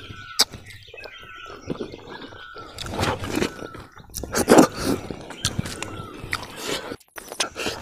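Close-up chewing and lip-smacking of a mouthful of rice and katla fish head, irregular, with a few louder wet smacks.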